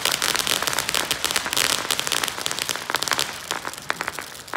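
Ground firework crackling: a fast, dense run of small sharp pops that thins out to a few scattered pops near the end.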